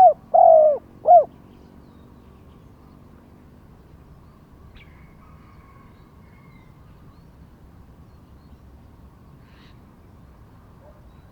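Spotted dove cooing: a short phrase of three arched coos in the first second and a half, the middle one longest, followed by only a faint background.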